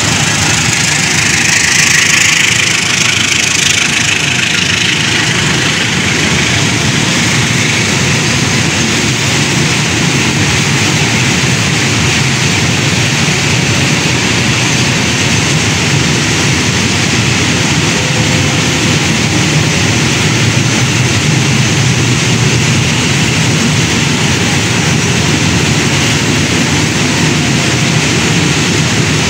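Freight train of rail tank wagons rolling past: a loud, steady rumble of steel wheels on the rails that runs on without a break.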